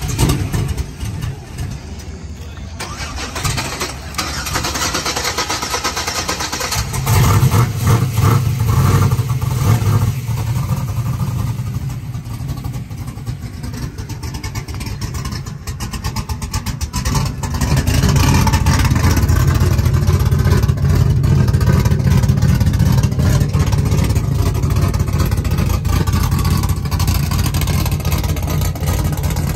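Pickup truck's modified 416-cubic-inch engine running with the hood open. It grows louder about seven seconds in, drops back, then rises again around eighteen seconds and holds a steady, heavy note.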